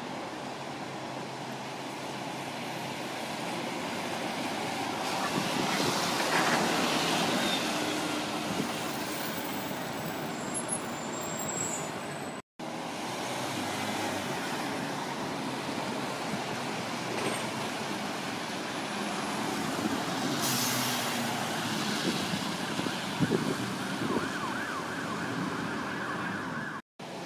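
Busy city road traffic: buses and cars passing, engines and tyre noise on a wet road, with a siren sounding near the end. The sound cuts out for an instant about halfway through.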